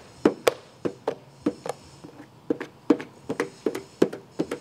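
Squeegee working wet paint protection film down onto the Bronco Sport's panel, pushing out the soapy water: a run of short, sharp knocks at irregular spacing, two or three a second.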